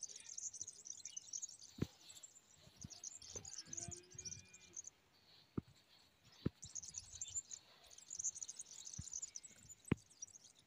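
Small birds chirping in rapid, high-pitched chatter, in two long runs with a pause of about two seconds between them, with a few sharp clicks or taps scattered through.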